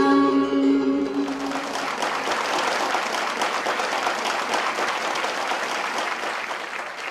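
A song ends on held notes about two seconds in, and an audience applauds with dense clapping that dies down near the end.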